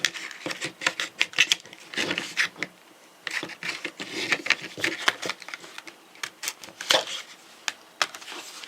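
Stiff plastic blister packaging crackling, crinkling and snapping in irregular clicks as it is worked open by hand.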